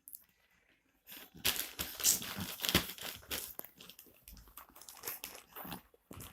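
A plastic cover being crumpled and crinkled in irregular bursts, starting about a second in.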